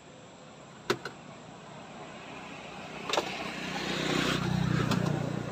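A car passing on the road, its engine hum and tyre noise rising to a peak about four to five seconds in, then easing off. Two sharp clicks sound about a second in.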